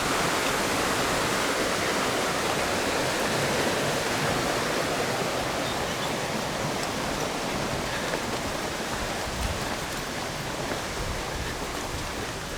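Rain-swollen creek flowing, a steady rushing of water that slowly grows quieter.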